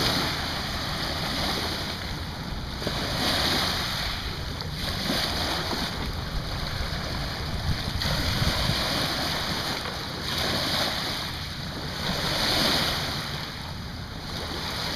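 Small waves washing onto the shore, rising and falling every two to three seconds.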